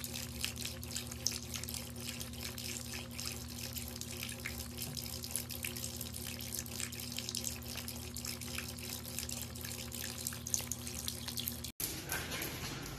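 Tap water running in a thin stream and splashing on a cat's muzzle as it drinks from the flow, with a steady low hum underneath. The sound cuts off abruptly near the end.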